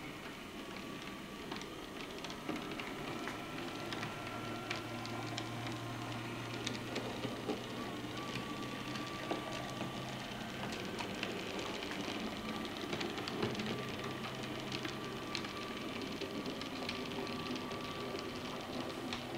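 Model steam locomotive and its wagons running slowly along model railway track: a small electric motor whirring with a steady low hum, and many light clicks and rattles of the wheels over the rail joints and points.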